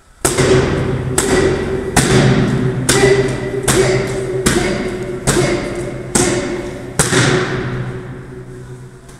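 Karate kicks landing on a hand-held kick pad: nine sharp smacks in a steady rhythm, a little faster than one a second. Each one rings on in a bare, echoing hall.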